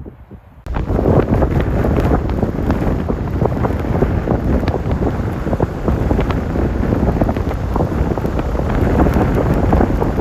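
Strong wind buffeting the microphone: a loud, dense rumble crowded with rapid crackles, starting abruptly just under a second in and then holding steady.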